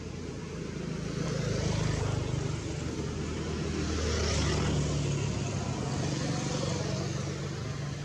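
A motor vehicle passing: a low engine hum with road noise that swells over the first couple of seconds, holds, and fades toward the end.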